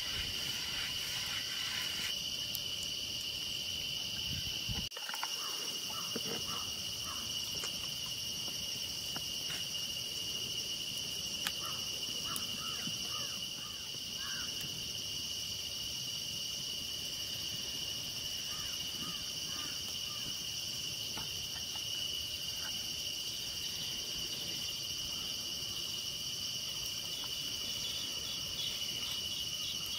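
Steady insect chorus of crickets, two continuous high shrill tones, briefly broken about five seconds in. Faint scattered small ticks sit underneath.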